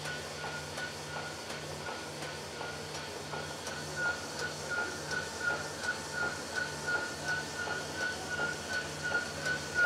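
Sunnen honing machine running a diamond hone head in an engine cylinder bore, rough-honing the bore toward finish size. A steady high whine over a low hum, pulsing about twice a second.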